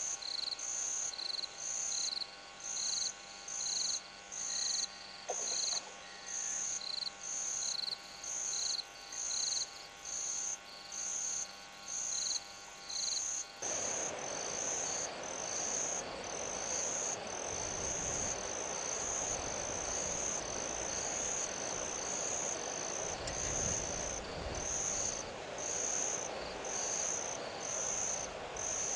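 Night insects chirping in a steady rhythm, about one and a half chirps a second on two high pitches. About halfway a steady hiss comes in suddenly underneath, with two low rumbles in the second half.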